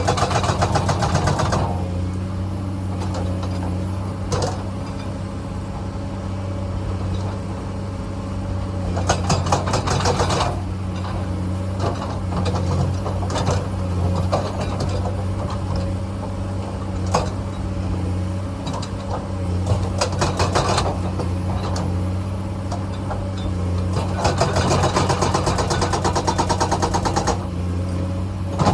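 Komatsu excavator's diesel engine running steadily under work, with several bursts of rapid metallic clattering lasting a second or a few seconds each, the longest near the end.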